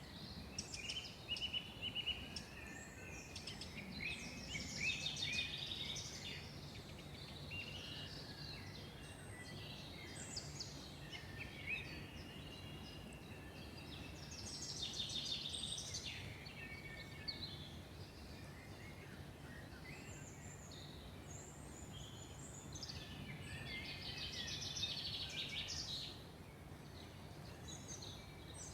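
Several wild birds singing and calling in a forest, with overlapping trills and chirps coming and going in short phrases, over a faint steady low hum.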